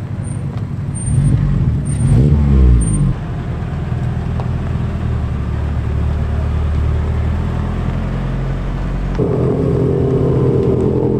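Car engines pulling away one after another, from a Mazda MX-5, a Nissan S14 Silvia and a Subaru Impreza WRX STI. An engine revs hard with its pitch rising and falling for the first three seconds and cuts off sharply. Then a steadier, lower engine runs, and another engine's louder note comes in about nine seconds in.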